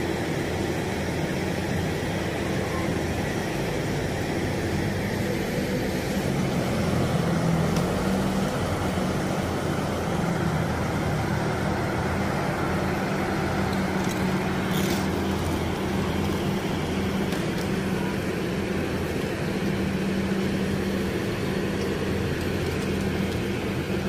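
Steady engine hum with street traffic noise around it, the engine's pitch shifting slightly about seven seconds in.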